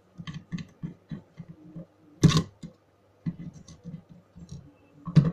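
Screwdriver clicking and scraping in the small screws of a hard drive's circuit board as they are undone: a run of light irregular ticks, with two louder clicks, one about two seconds in and one near the end.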